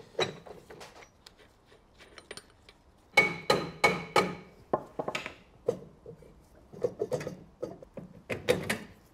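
A mallet knocking repeatedly on a Citroën 2CV's rusty rear brake drum to free it from the hub. There are a dozen or so sharp knocks. The heaviest come in a quick run about three seconds in, and the metal drum rings briefly after each of them.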